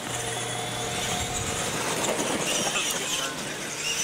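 Two R/C monster trucks running flat out on a dirt track: electric motors whining and tyres crunching over the dirt, the high whine growing stronger about two seconds in.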